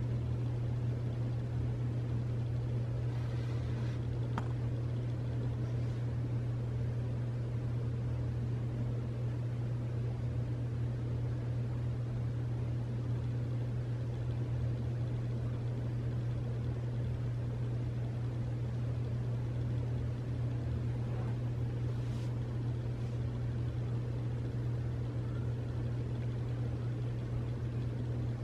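A steady low hum, unchanging in pitch and level, over a faint background hiss, with a couple of faint brief ticks.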